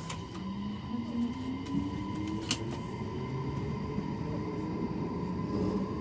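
Mitsubishi IGBT VVVF inverter of a JR Series 733-3000 electric train whining as the train accelerates from a stop, the whine rising in pitch in two successive sweeps over the rumble of the running gear.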